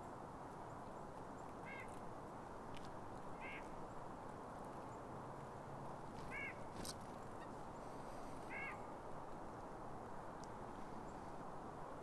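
A bird gives four short calls about two seconds apart, each rising and falling a little in pitch, over a steady low background rush.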